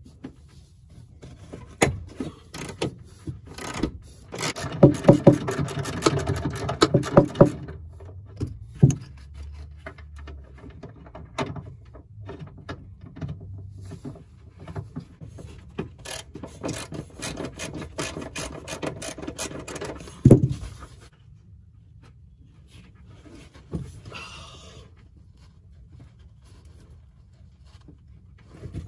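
Hand ratchet wrench clicking in quick strokes on the seat-rail bolts, in two long spells with a sharp knock at the end of the second, along with tools being handled on the carpet.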